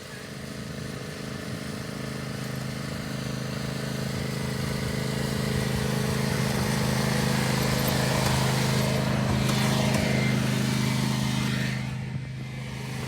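Riding lawn mower engine running steadily, growing louder over the first eight seconds or so as it draws near, then dropping off about twelve seconds in.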